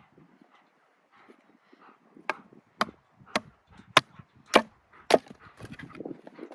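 Splitting firewood by batoning: a wooden baton strikes a blade through a piece of wood six times, about half a second apart, each a sharp loud knock.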